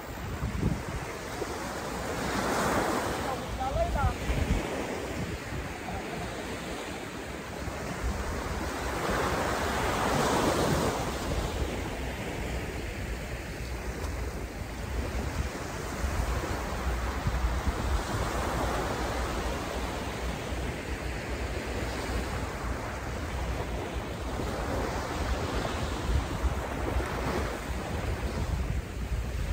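Small ocean waves breaking and washing up a sandy beach, the surf swelling and falling back about every eight seconds, with wind rumbling on the microphone.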